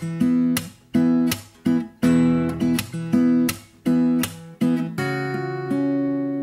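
Acoustic guitar strumming chords in a steady rhythm, then letting one chord ring out from about five seconds in.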